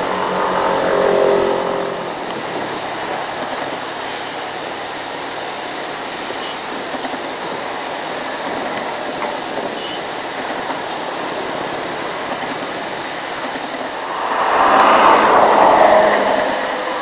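Excavator diesel engine running at a distance over a steady background rush, its pitch and level rising briefly in the first two seconds. Near the end a louder rush of noise swells and fades over about three seconds.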